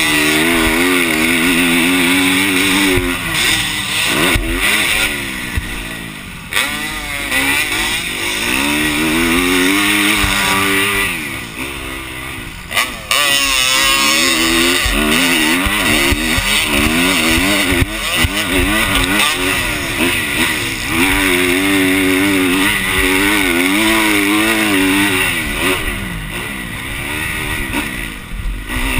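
Motocross bike engine revving hard and falling back again and again as the rider works the throttle and gears, with brief lulls off the throttle, heard from a helmet camera with steady wind rush over it.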